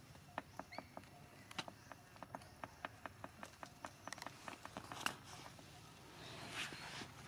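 Dry leaves crackling: a run of small, irregular clicks, several a second, with a soft rustle near the end.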